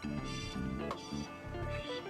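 Quiet background music: a melodic tune over a stepping bass line, with no other sound.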